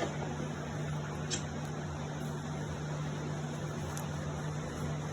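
A steady low hum with a few faint clicks, one a little over a second in and another near four seconds.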